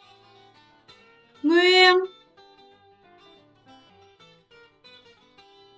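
Background music of a strummed acoustic guitar, with one short spoken word about a second and a half in.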